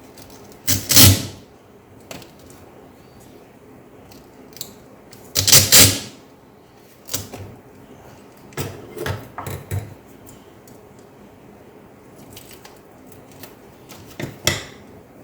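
Handling noises from work on a laptop: five or so short bursts of clattering and scraping of small hard parts, the loudest about a second in and around the sixth second.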